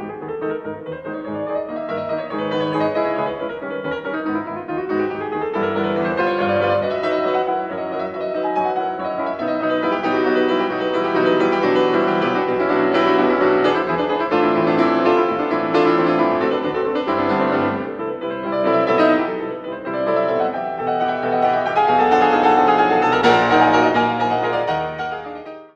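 Piano music: a melody played over chords, which stops abruptly at the end.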